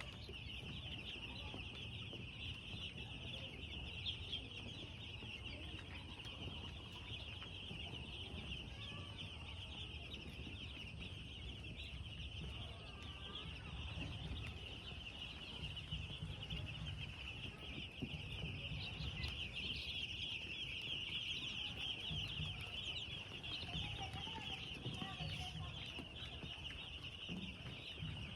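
A flock of broiler chicks peeping continuously in a dense chorus, over a steady low hum.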